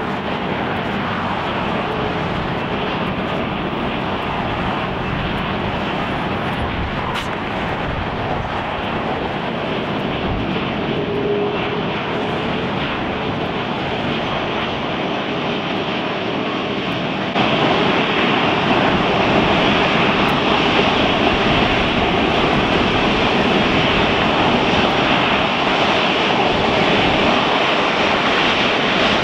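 Four-engined Airbus A380 jet airliner on the ground, its jet engines running with a steady rushing noise. The noise steps up suddenly about 17 seconds in.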